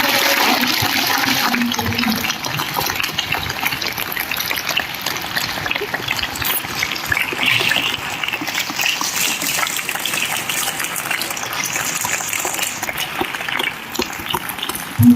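Large audience applauding, a long round of clapping that eases off a little after the first two seconds.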